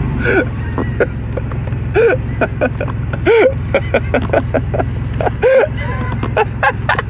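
A person laughing in short, breathy wheezing bursts over the steady hum of a car's engine and road noise inside the cabin.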